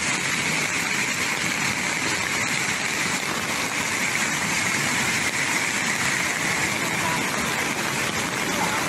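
Fast-flowing floodwater rushing past the bank, a loud steady noise.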